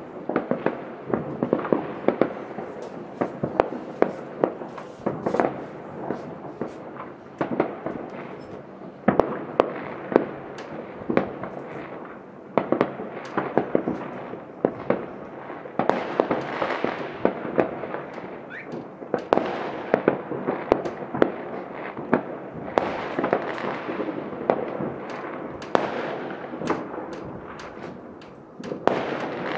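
Many fireworks going off at once: a dense, unbroken stream of bangs and crackles, several sharp reports a second over a constant rumble.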